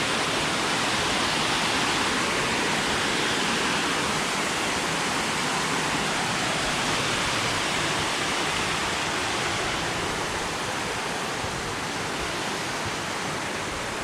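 Steady rushing noise of a nearby waterfall, easing a little toward the end.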